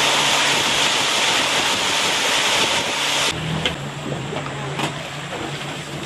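River tour boat's engine running with a loud rushing noise over a steady low hum. About three seconds in, the rush cuts off abruptly, leaving a quieter engine hum with a few faint clicks.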